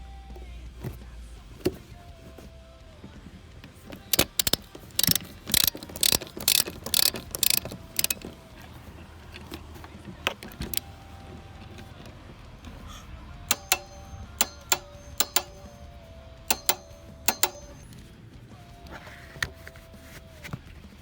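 Sharp mechanical clicks in two runs, each a few seconds long, about two clicks a second, with a pause between the runs.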